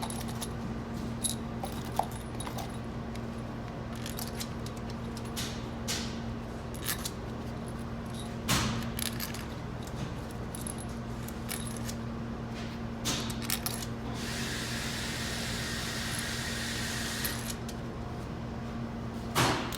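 Metal bolts and hand tools clinking and tapping in scattered small knocks as the transmission's pump housing bolts are fitted, over a steady electrical hum. A hiss of about three seconds comes a little past the middle.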